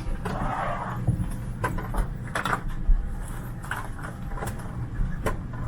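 Parked airliner cabin: a steady low hum under scattered clicks, knocks and rustles as passengers handle their belongings, with a short rustle about a quarter of a second in.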